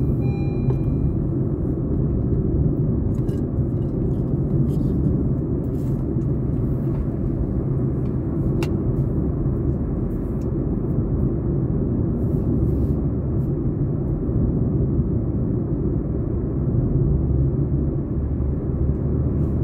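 A car driving along a road: a low, steady rumble of engine and tyre noise.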